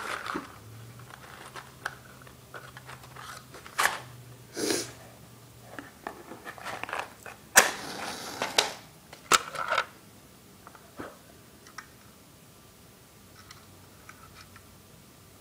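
Scattered clicks, knocks and rustles of a plastic smoke detector being handled, with a faint low hum through the first half.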